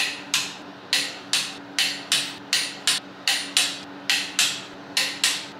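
Ratchet of a long torque wrench clicking in short back-and-forth strokes, about two or three a second, as cylinder head bolts are tightened.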